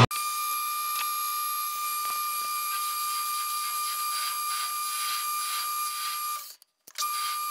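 Metal lathe running while facing a piece of tie rod to length: a steady high-pitched whine with faint ticks, cutting out briefly near the end.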